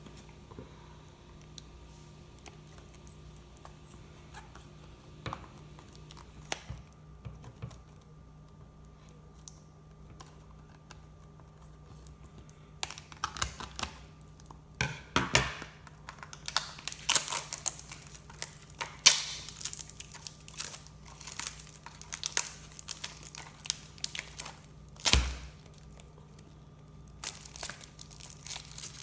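Shopkins blind-basket packaging being torn open and crinkled by hand, in quick crackling, ripping bursts through the second half after a quieter start with only a few faint clicks. A single low thump comes near the end.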